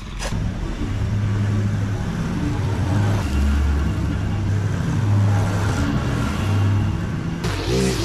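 Small gas engines of lawn equipment running, a stand-on mower and a string trimmer, their pitch stepping up and down between shots. Near the end it changes abruptly to a brighter, higher-pitched engine sound from the string trimmer at work.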